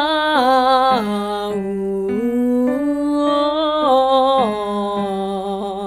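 A singer demonstrating the 'ee-ah-oo-aw' scale-and-triad vocal exercise: long held notes with vibrato that step up and down in pitch, over a steady held low note underneath.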